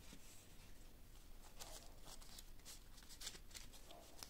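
Faint crisp rustling and flicking of paper euro banknotes being handled and squared into a stack, in a string of short irregular crackles.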